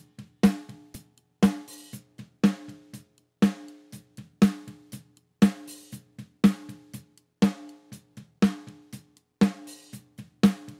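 Close-miked snare drum track (top mic) playing back through EQ and the Revival plugin, with highs and body added. A loud snare hit lands about once a second, each with a ringing tone, and quieter hits fall between them.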